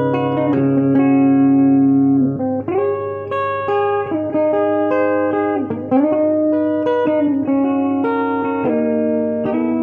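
Electric guitar played solo: held melodic notes with sliding or bent changes of pitch between them, over a low note left ringing underneath.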